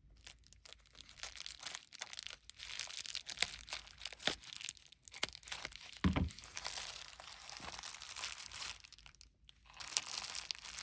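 Packing tape being peeled and torn off a parcel, with plastic packaging and bubble wrap crinkling: an irregular run of crackles and rips.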